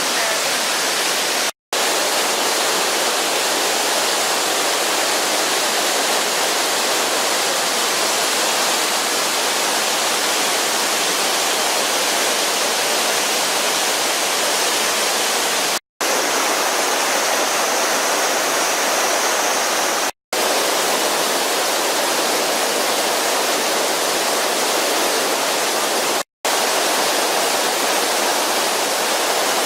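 Waterfall and rocky stream running in spate after heavy rain, a steady rush of water, broken by four brief dropouts to silence.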